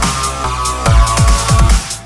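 An electronic dance-style phone ringtone, one of LineageOS 14's stock ringtones, playing: synth chords over repeated deep kick-drum thumps that drop in pitch, with a brief break near the end.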